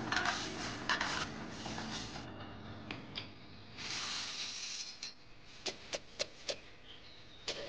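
Coffee beans being stirred and scraped with a spatula in a dry wok during roasting. About four seconds in comes a rush of roasted beans pouring across a bamboo tray. Near the end there is a quick series of sharp knocks as a pestle pounds roasted coffee beans in a mortar.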